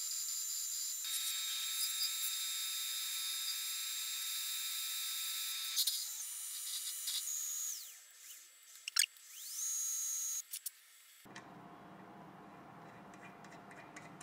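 Milling machine spindle running with a steady high-pitched whine while drilling. It winds down with a falling whine, spins back up with a rising whine, and then stops suddenly, leaving a faint low hum.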